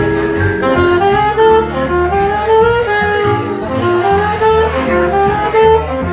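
Instrumental jazz: a melody moving in short stepped notes over a bass line.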